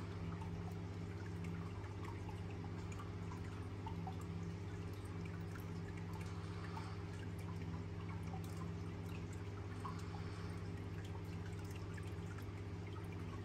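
Steady low mechanical hum with faint, scattered drip-like ticks.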